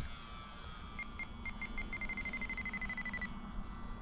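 RC radio transmitter beeping: about five separate beeps about a second in, then a fast run of short beeps for over a second, the pitch falling slightly. This is typical of the trim switch being clicked and then held while the model is trimmed in flight. The faint, steady drone of the model plane's electric motor runs underneath.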